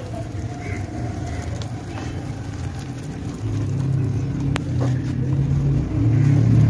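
A motor vehicle engine running with a low, steady hum that grows louder about three and a half seconds in. A single sharp click sounds near the middle.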